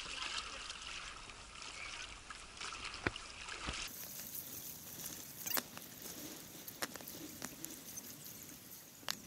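Water lapping and trickling against a stand-up paddleboard as it is paddled, with small ticks and drips. About four seconds in it drops to fainter water noise with scattered clicks.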